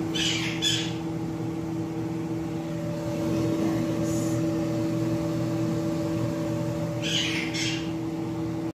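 Steady motor hum of a running kitchen appliance with a few fixed tones. Twice, right at the start and again about seven seconds in, two quick rustling scrapes come over it from fingers pressing shrimp into dry breadcrumbs.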